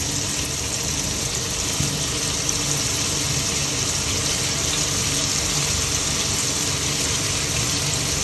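Chicken strips sizzling in hot butter in a frying pan, a steady, even hiss as more strips are laid in.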